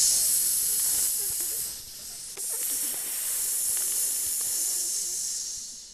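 Snake hissing, a cartoon sound effect: a long hiss that breaks off about two seconds in, then a second, slightly quieter hiss that fades out near the end.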